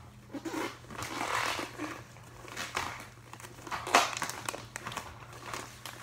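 Plastic packaging of a bag of CritterCare paper pet bedding crinkling and rustling as hands grip and pull at it while trying to get it open, with one sharp crackle about four seconds in.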